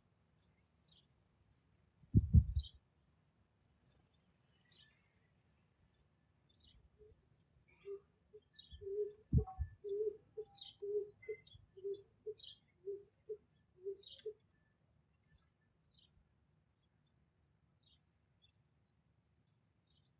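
Small birds chirping faintly and repeatedly at a garden bird feeder, typical of house sparrows. A loud low thump comes about two seconds in, and a run of low, evenly spaced notes, about two a second, comes through the middle.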